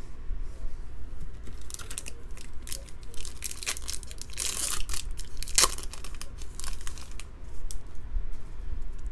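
Foil wrapper of a Bowman Draft baseball card pack crinkled and torn open by hand. It makes a run of sharp crackles over several seconds, loudest about halfway through.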